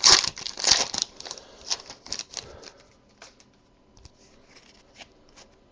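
Trading card pack being opened and its cards handled: crinkling and sliding noise, busy for the first couple of seconds, then thinning to a few faint taps as the cards are flipped through.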